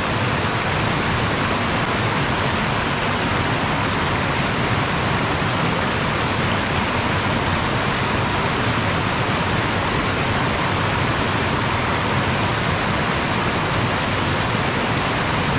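Steady, unbroken rushing noise at an even loud level, with no distinct events.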